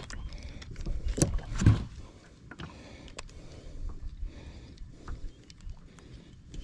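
Water lapping and knocking against the hull of a small fishing boat, with two heavy thumps about a second in and light clicks after.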